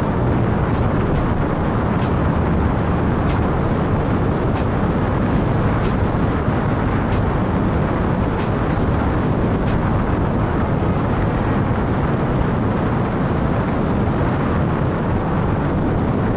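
Wind rushing over an outside-mounted action-camera microphone on a moving pickup truck, with road noise underneath, steady throughout. Sharp ticks come at irregular intervals through the first two-thirds.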